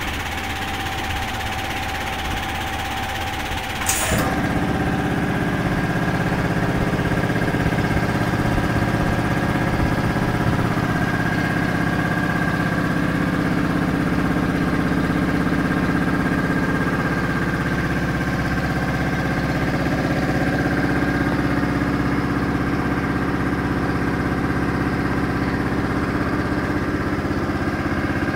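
Anest Iwata oil-free reciprocating air compressor, driven by an electric motor, running with a steady mechanical hum. About four seconds in there is a sharp click, and from then on it runs louder and fuller.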